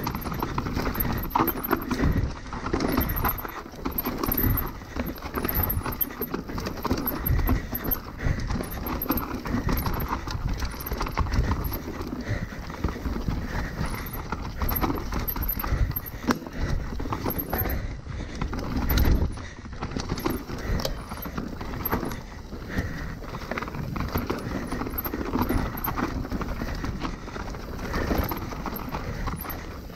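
Mountain bike riding fast down a rough dirt singletrack: a steady rush of tyres on loose dirt, broken by frequent irregular knocks, clunks and rattles from the bike as it hits bumps and roots.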